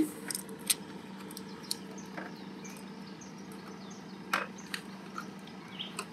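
Scattered small clicks and taps of a flathead screwdriver prising up the plastic plug of a swirl valve motor's wiring, the loudest click about four seconds in, over a faint steady hum.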